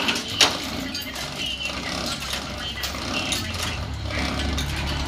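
Two sharp metallic clicks, then mechanical clatter, with a low engine-like hum that grows louder near the end.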